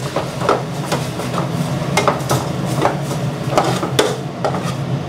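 Metal ladle stirring beef and curry paste in a metal pot, scraping and clinking against the pot's side about ten times, over a steady low hum.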